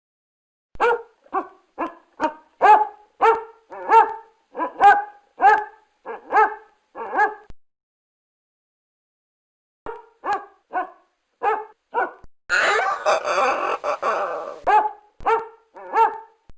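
A dog barking repeatedly, about two barks a second, with a pause of about two seconds in the middle. Near the end comes a rougher, continuous stretch of about two seconds, then a few more barks.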